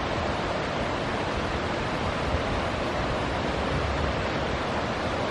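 Wind on an outdoor microphone: a steady rushing noise with an uneven low rumble.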